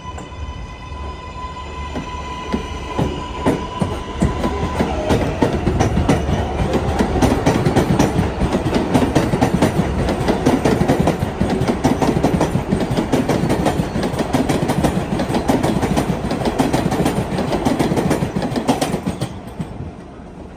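A New York City Subway 7 train of R188 cars passes on the elevated steel structure. Its electric motors whine at first. The clatter of wheels over rail joints then grows loud and fades as the train runs away.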